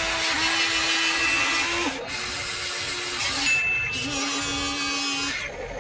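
Electric motors of a Huina radio-controlled toy excavator whining as the arm digs and the cab swings, a steady tone that steps lower in pitch partway through, over a constant hiss. The whine breaks off briefly about two seconds in and again near the end.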